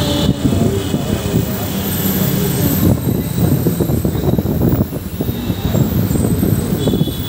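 Road traffic noise heard while riding along a busy city street: a loud, dense rumble of engines and tyres that flutters unevenly.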